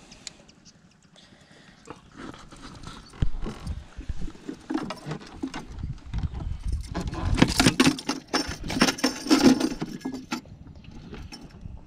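Giant snakehead flapping and slapping against the wooden floorboards of a small boat as it is unhooked, an irregular flurry of knocks that starts about three seconds in and is thickest in the second half.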